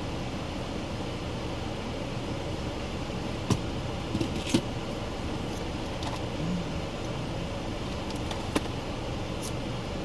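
Steady low hum of a car interior with the engine idling, broken by a few sharp clicks and taps: one about a third of the way in, a pair a second later, and one near the end.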